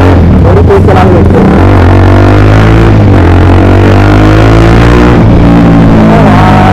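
Motorcycle engine running through a loud aftermarket full-system exhaust while riding. The deep exhaust note climbs slowly as the bike picks up speed, then dips a little past five seconds in, like a gear change.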